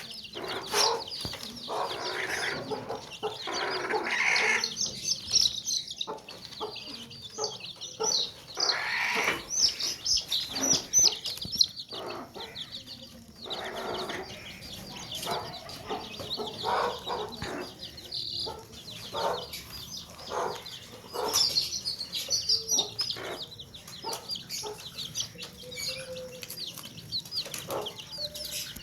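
Many baby chicks peeping continuously in short, high chirps, with lower chicken clucks mixed in at times and scattered short clicks.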